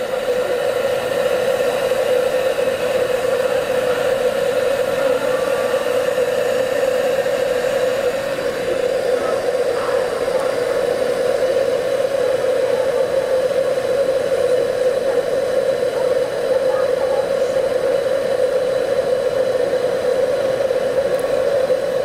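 Hamilton Beach 1-litre stainless steel electric kettle heating water to the boil on its 1500-watt concealed element: a steady rushing noise with a humming note, the sound of the water starting to boil.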